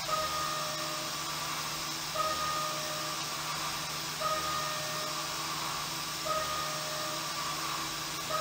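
Haas CNC mill roughing a hardened 20CV steel knife-blade bevel with an end mill under air blast: a steady hiss of air over the running spindle, with a brief ringing tone and a small bump that comes back about every two seconds.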